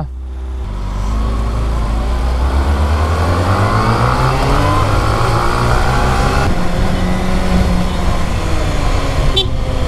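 Kawasaki Ninja sportbike's inline-four engine pulling away and accelerating. The engine note climbs steadily for about six seconds, then changes at a gear shift and holds steadier.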